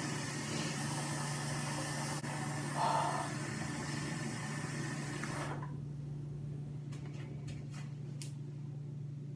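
Bathroom sink tap running, with an even rush of water that cuts off abruptly a little over halfway through as it is turned off. A few light clicks and taps follow over a steady low hum.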